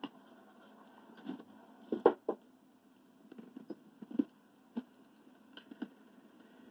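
Knocking on a front door: scattered, uneven raps, the loudest a quick run of three about two seconds in, over the steady hum of an old videotape played back through a laptop speaker.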